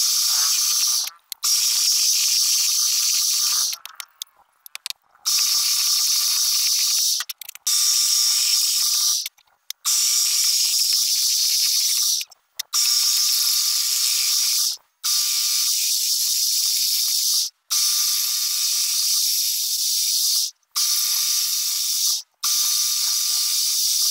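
Turning chisel cutting a spinning wooden blank on a wood lathe: a steady high hiss of shavings peeling off, with a faint steady whine under it. It comes in stretches of one to three seconds, each cutting off suddenly.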